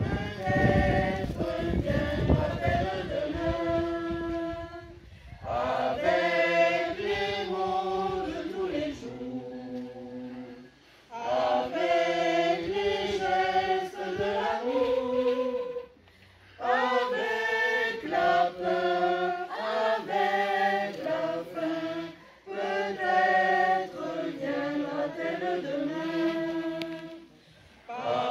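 Mixed amateur choir of men's and women's voices singing unaccompanied, in phrases of about five seconds each with brief pauses between them.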